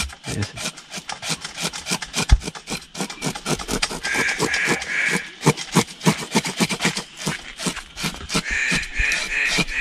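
A knife scraping the scales off a grouper (lapu-lapu) held on a wooden board, in quick repeated rasping strokes.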